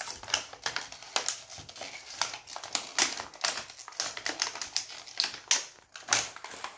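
Toy packaging being opened by hand: a rapid, irregular run of sharp crackles and clicks.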